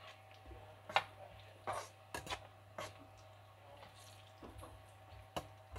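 Stainless steel slotted spatula scraping and knocking against a nonstick wok while stirring frying onions, in a string of short, irregular strokes.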